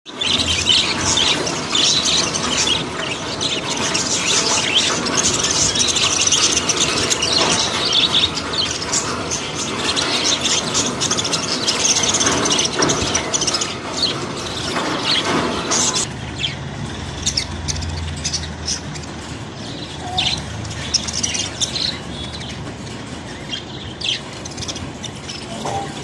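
A large flock of budgerigars chattering and chirping, many calls overlapping. About two-thirds of the way through the chatter thins to fewer, scattered chirps.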